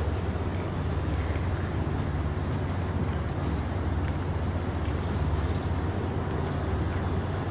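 Steady low rumble of outdoor city background noise, with a few faint ticks about halfway through.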